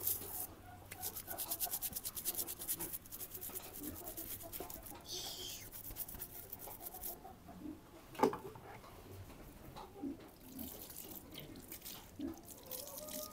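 Stiff-bristled brush scrubbing a sheep's hoof with soap and water in rapid rubbing strokes, busiest in the first half, as the hoof wound is washed before treatment. A sharp knock about eight seconds in, and water poured from a plastic bottle near the end.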